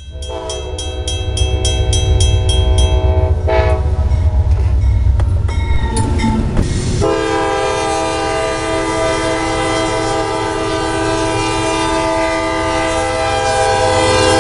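Railroad crossing bell ringing about three times a second over the low rumble of an approaching freight train for the first few seconds. About seven seconds in, a CSX freight locomotive's air horn sounds one long, loud chord of several tones.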